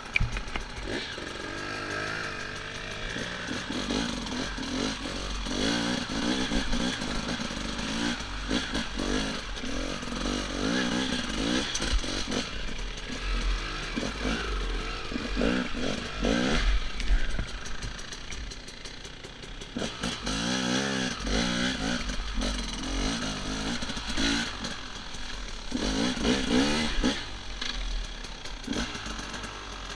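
Enduro dirt bike engine revving up and down in repeated short bursts as it is ridden over a rough forest trail, picked up close on a helmet camera, with knocks and rattles from the bike over the uneven ground.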